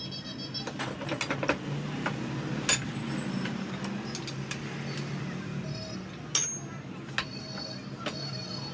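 Metal clinking and knocking from a motorcycle front fork tube and tools being handled and clamped in a bench vise, with three louder sharp clanks, over a low steady hum.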